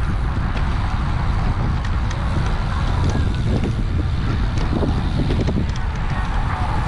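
Wind buffeting the microphone of a camera mounted on a moving bicycle, a steady loud rumble.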